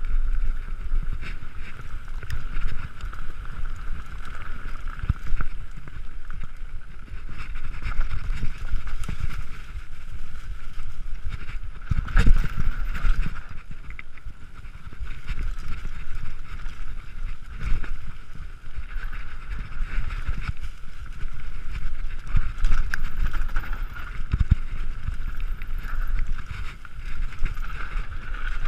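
Mountain bike descending rough singletrack: wind rumbling on the bike-mounted microphone, irregular knocks and rattles from trail bumps, and a steady high buzz, with harder jolts about twelve seconds in and again near the end.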